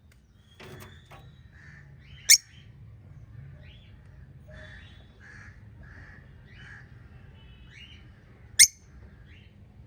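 Pet budgerigars chirping and chattering in a steady run of short warbled notes, with two loud, sharp shrill calls, one about two seconds in and one near the end.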